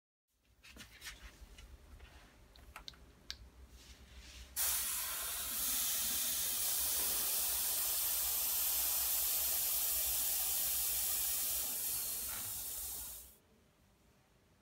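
Compressed air rushing from a homemade air tank through a tire inflator gauge into a bicycle tire valve: a steady loud hiss that starts suddenly about four and a half seconds in, runs for about nine seconds and then stops. Before it, light clicks as the chuck is fitted onto the valve.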